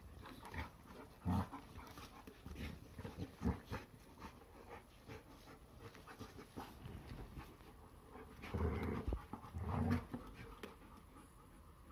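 Three retriever dogs play-wrestling: panting and scuffling, with irregular short louder bursts, the strongest a few seconds before the end.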